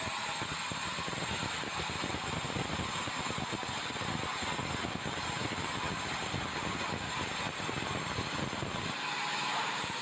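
Sawmill band saw cutting a bengkirai beam, a steady machine noise with a dense rattle underneath. Near the end the low rattle drops away, leaving a steadier hum.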